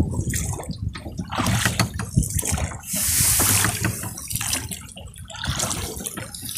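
A wooden oar rowing a small boat, its blade dipping and pulling through the water with irregular splashing and dripping, and a louder splash about three seconds in.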